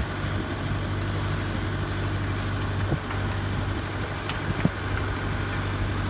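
Idling engine: a steady low hum and rumble, with two faint clicks about three and four and a half seconds in.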